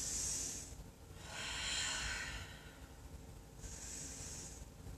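A woman's slow, audible breathing through a yoga pose: three long breath sounds, in and out, each lasting about a second with short pauses between.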